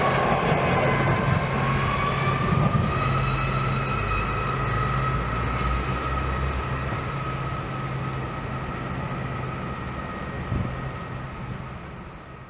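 Departing diesel-hauled passenger train: a steady high whine over a low engine rumble. The whine dips slightly in pitch about a second in, and the whole sound fades as the train pulls away.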